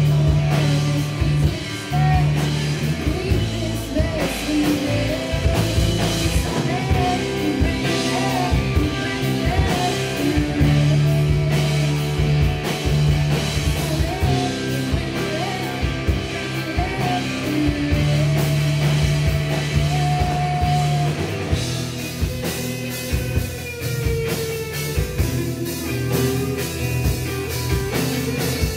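Live rock band playing: a woman's lead vocal over electric guitars and a drum kit. About three-quarters of the way through the singing stops and the band carries on with an instrumental passage.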